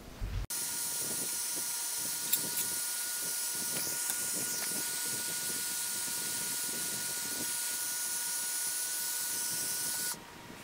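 Heat gun running with a steady hiss and a high whine, blowing hot air onto rigid PETG tubing to soften it for bending. It cuts off abruptly near the end.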